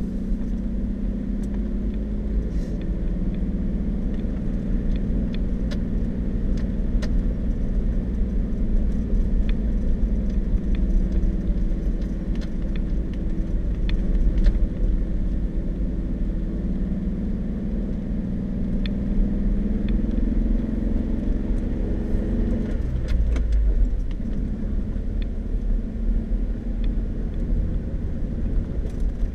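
Vehicle driving slowly along a dirt and gravel road: a steady engine hum whose pitch drifts up and down with speed over a heavy low rumble of tyres, with scattered light ticks and rattles.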